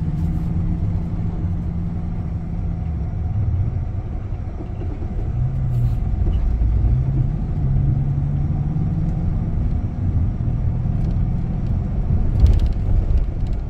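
A vehicle's engine and road noise heard from inside the cabin while driving slowly, a steady low rumble. The engine note dips and then climbs again about halfway through.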